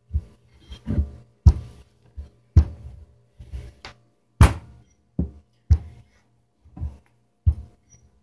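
Rolling pin thumping and knocking down onto pie crust dough on a counter as the dough is rolled out, about a dozen sharp knocks at uneven intervals.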